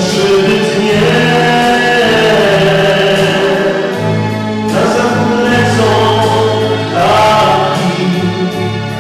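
A man singing a religious song into a microphone over instrumental accompaniment, in long held phrases of a few seconds each.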